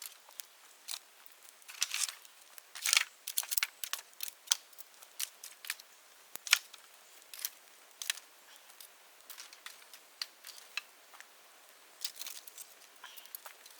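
Bonfire of dead bamboo crackling, with irregular sharp pops and quick clusters of snaps; the sharpest pop comes about halfway through.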